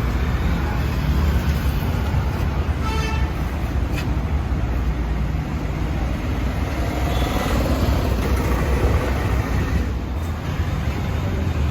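Steady road traffic noise, a continuous rumble of passing vehicles, with a brief vehicle horn toot about three seconds in.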